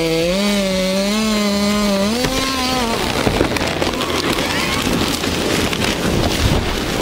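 Chainsaw running in a cut through a large tree trunk, its engine pitch wavering, until it stops about three seconds in. A dense crackling of splitting wood and snapping branches follows as the tree gives way and starts to fall.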